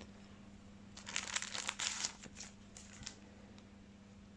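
Crinkling and rustling of plastic and card as trading cards are handled, in a cluster of irregular rustles from about one to three seconds in.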